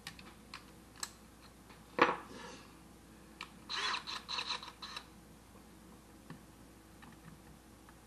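Small tool clicks and a sharp knock about two seconds in, then a cordless drill run in several short stuttering whirs over about a second, as if tightening a bit in its chuck.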